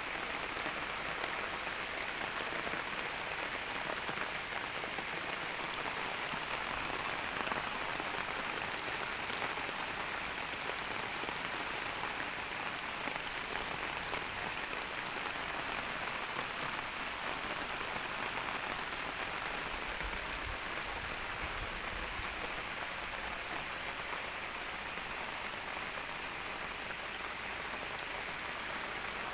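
Steady rain falling: a dense, even patter with no let-up.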